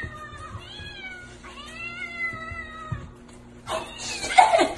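Ginger kittens meowing for food held above them: two long drawn-out meows, the first falling in pitch and the second rising then falling, then a louder, harsher yowl near the end.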